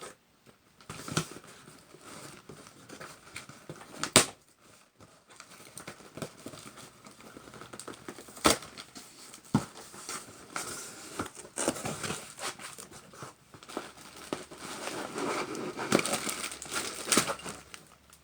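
Package wrapping being handled and pulled open: irregular crinkling and tearing, broken by a few sharp snaps, the loudest about four seconds in and another about eight and a half seconds in.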